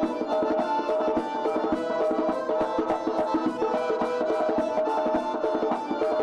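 Circassian folk dance music: a held, sustained melody over a fast, dense drum beat.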